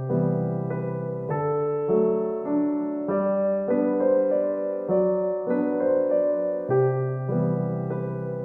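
Background music: a gentle piano melody over sustained bass notes, the notes changing about twice a second.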